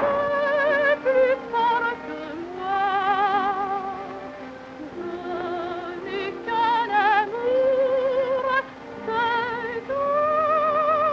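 Background music: a slow solo melody of held notes with a wide vibrato, operatic in style, over a steady low drone. The melody glides between notes in places and ends on a long held note.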